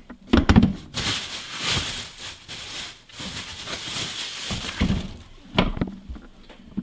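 Plastic grocery bag rustling and crinkling as a store-wrapped beef roast is handled, with a few knocks of things set down on the counter.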